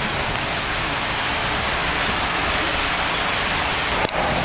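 Water rushing and spraying through a water-coaster tube around a sliding rider, a steady hiss, with a short knock about four seconds in.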